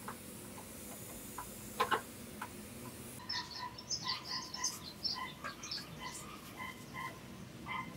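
Small animals chirping in quick short calls, many of them from about three seconds in. Before that there are a few sharp clicks, the loudest pair just before two seconds in.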